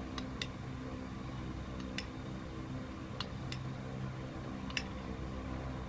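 A handful of light, sharp clicks and taps, scattered a second or so apart, as utensils and containers are handled while mixing slime, over a steady low hum.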